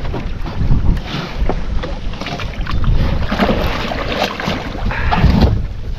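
Wind buffeting the microphone over water lapping, with scattered knocks and clatter from a wooden outrigger boat.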